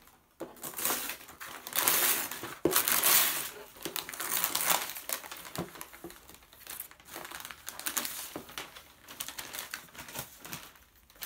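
Tissue paper and wrapping paper crinkling and rustling as a gift box is lifted out and unwrapped, loudest about two to three and a half seconds in, with a few light knocks.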